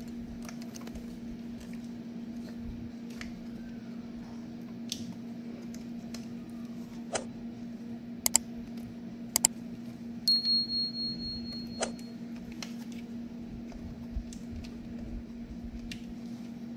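Small metallic clicks and clinks of hands and tools refitting the fuel injectors on a car engine, with a brief high ringing tone about ten seconds in, over a steady low hum.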